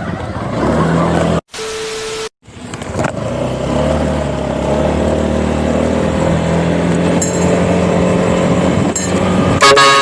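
Loud horn on a motor scooter blasting, in separate takes: a short steady honk about two seconds in, a long held honk from about three seconds, and another stronger honk near the end.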